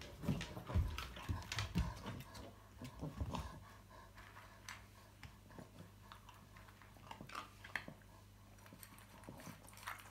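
Boston terrier crunching dry kibble, with soft thumps and shuffling in the first few seconds, then sparse short crunches and clicks.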